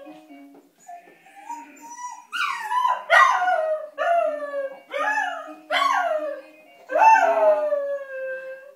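Cocker spaniel puppy howling at the music of a baby's toy piano play mat: a soft rising whine, then about two seconds in a run of about six howls, each sliding down in pitch, over a faint electronic tune.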